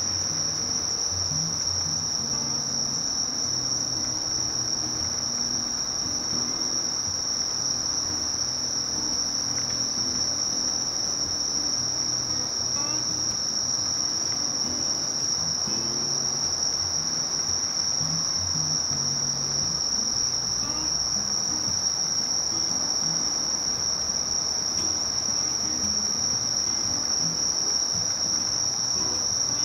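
Crickets singing: one steady, unbroken high-pitched trill that holds the same pitch.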